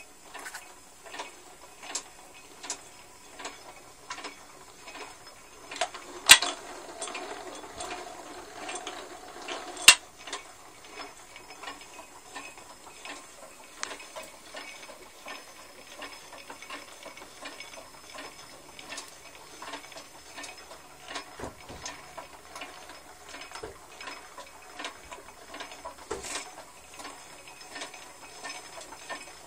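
Drummond lathe running under belt drive, its spindle and gearing turning with a continuous uneven clatter of ticks and clicks. Two sharper knocks stand out about 6 and 10 seconds in.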